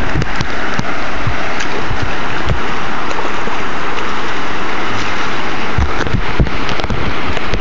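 Loud, steady rushing of whitewater river rapids, with scattered low thumps.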